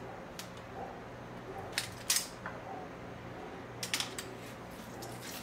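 Metal potato ricer and spoon clinking as boiled carrots are loaded into the ricer and squeezed through: a handful of sharp, scattered clicks and knocks, the loudest about two seconds in, over a faint steady hum.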